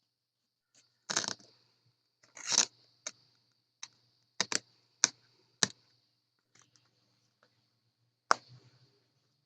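Cutting around the edges of a part by hand to free its centrepiece: two short scraping cuts early on, then a string of separate sharp cracks and clicks.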